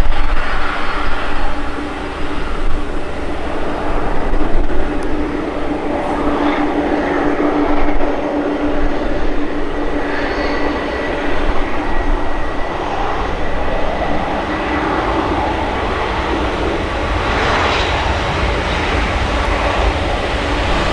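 Jet engines of a Boeing 747-400F freighter running at low power, a steady rumbling roar with a humming tone and a thin high whine, swelling briefly near the end.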